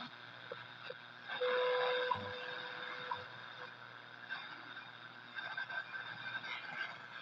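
Zenith B600 tube radio playing static between stations: a steady hiss with a brief steady whistle a little over a second in.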